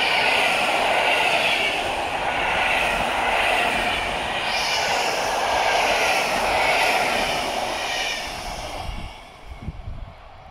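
Passenger coaches rushing past close by at speed: a loud, steady rolling rush of wheels on rails that swells and fades in regular waves as the coaches go by. It drops away sharply near the end.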